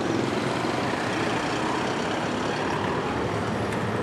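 Steady road traffic noise: motor vehicles running on the street, a continuous low rumble with no sharp knocks.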